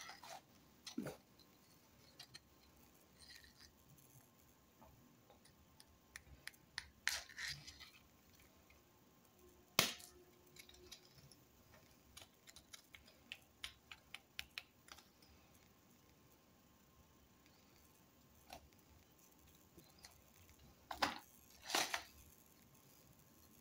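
Quiet handling of dry biscuits: scattered small clicks and crackles as fingers pull sandwich biscuits apart and turn them over, with a sharp click about ten seconds in, a run of light ticks a little later, and two louder crackly bursts near the end.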